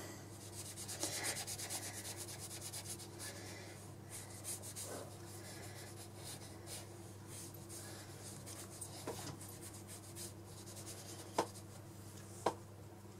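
Watercolour brush scrubbing back and forth on sketchbook paper in quick, faint rubbing strokes, with two sharp taps near the end, over a low steady hum.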